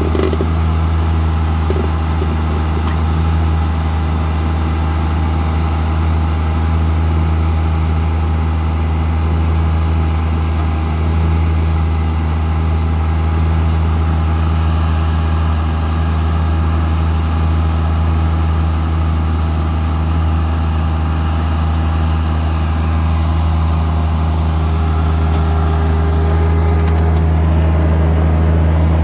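Bobcat CT1025 sub-compact tractor's diesel engine running at a constant speed while its backhoe is worked, a deep, even hum. A faint higher tone joins near the end.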